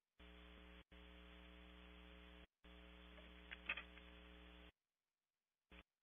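Faint electrical mains hum with a buzzy hiss from a camera's audio feed, cutting in and out abruptly several times. A few brief sharp clicks stand out about three and a half seconds in.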